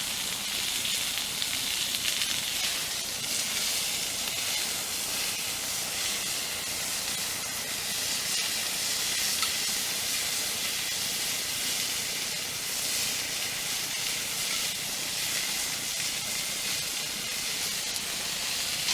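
Steak frying in a cast iron frying pan: a steady sizzle.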